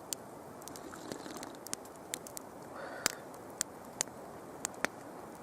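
Campfire wood crackling: sharp, irregular pops and snaps, about a dozen, over a steady soft hiss.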